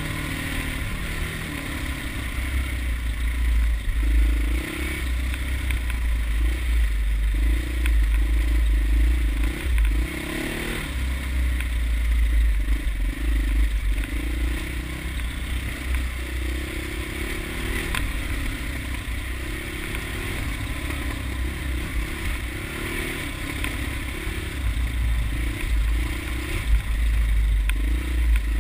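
Dirt bike engine running along a rough dirt trail, the revs rising and falling with the throttle every second or two, under a heavy low rumble that comes and goes.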